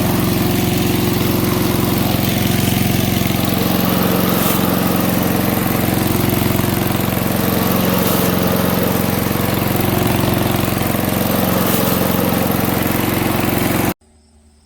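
MTD 5 hp chipper shredder's small single-cylinder engine running steadily at speed, with a few faint clicks from material in the machine. It cuts off abruptly near the end.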